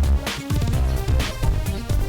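Upbeat electronic pop background music with a driving beat, about two drum hits a second over bass and synth.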